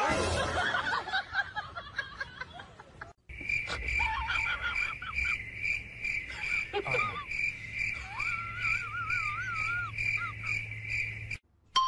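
Crickets chirping in a steady high pulsing trill, after about three seconds of fading pitched sound and a short break. A wavering high whine rises over the chirping near the end.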